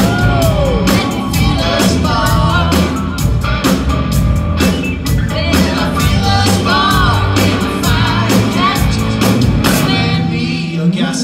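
Live blues band playing: a woman singing lead over electric guitar, electric bass, keyboard and drums, with a steady drum beat.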